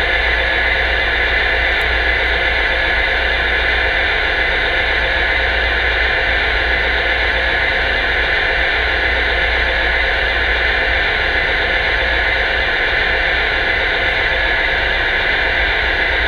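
Lionel 57-foot mechanical reefer car's onboard sound effect of the diesel generator that runs the refrigeration unit, playing as a steady, unbroken drone while the car stands with track power on.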